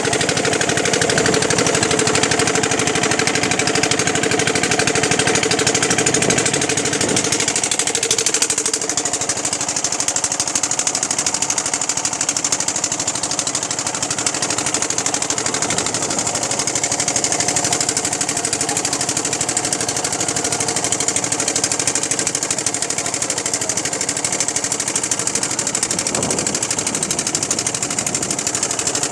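Motorboat engine running steadily as the boat travels, its note shifting slightly about eight and a half seconds in.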